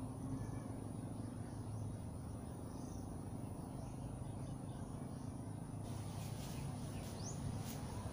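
Rural outdoor ambience: a steady high-pitched insect drone, such as crickets, over a low steady hum. A short rising bird chirp and a few faint ticks come near the end.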